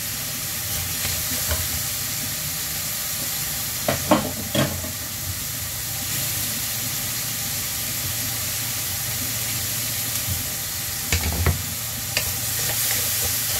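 Julienned carrots and sliced chicken breast sizzling steadily in a nonstick wok, stirred with a wooden spatula that knocks and scrapes against the pan a few times, about four seconds in and again about eleven seconds in.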